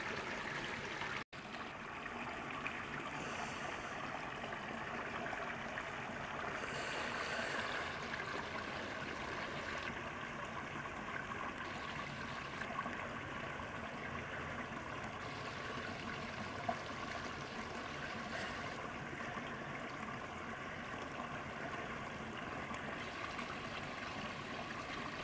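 Small swamp creek trickling and burbling steadily over roots and woody debris.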